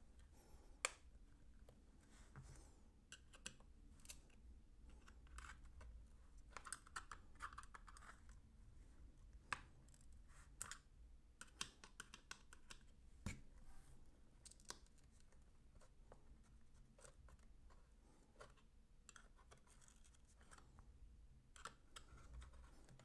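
Faint, irregular scraping and small clicks of flat-head screwdrivers prying at the seam of a Seagate One Touch external hard drive's plastic-and-metal case, with a few sharper clicks standing out.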